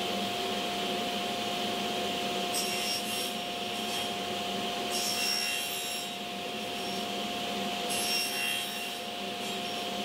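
Sliding table saw running steadily while short hardwood pieces are crosscut on its sliding table. Three cuts, each about a second long, come about every two and a half seconds, each a hiss of the blade through the wood.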